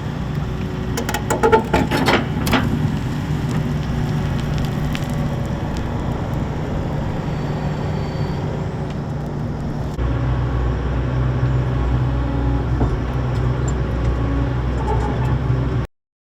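Hitachi Zaxis 130 excavator's Isuzu diesel engine running steadily, with a few sharp metallic clanks in the first few seconds. About ten seconds in the engine note shifts lower and gets slightly louder.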